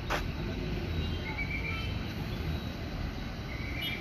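Steady low rumble of road traffic, with a sharp click just after the start and a few brief high-pitched tones in the middle and near the end.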